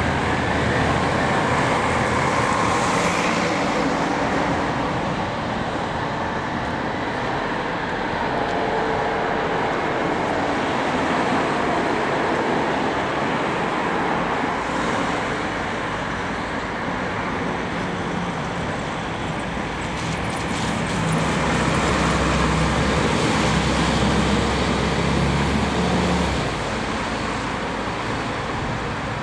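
Road traffic of diesel buses, a coach and cars passing, engines and tyres running steadily. A heavy diesel engine's low drone grows loudest about two-thirds of the way through and cuts off abruptly near the end.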